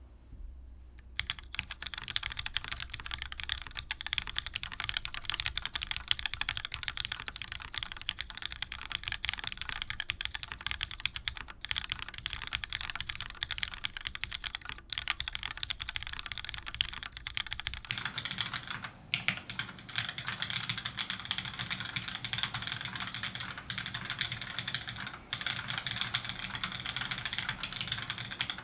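Continuous fast typing on a custom mechanical keyboard: lubed, broken-in Cherry MX2A Black linear switches in a top-mounted aluminium-plate board with GMK Dolch keycaps, clacking steadily. About a second in the typing starts, and a bit over halfway through the pickup changes to the camera's built-in microphone, which adds a low hum under the keystrokes.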